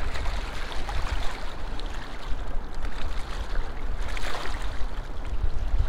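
Wind buffeting the microphone in uneven gusts, over small waves lapping against a rocky shoreline.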